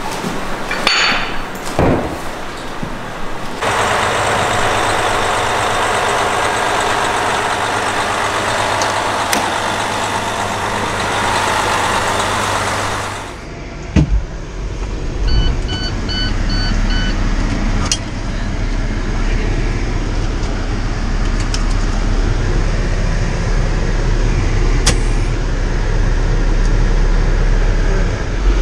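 Fire engine's diesel engine running at idle, heard from outside the truck. About 14 seconds in, a door thuds shut, a short run of beeps sounds, and the engine is then heard as a steady low rumble from inside the cab.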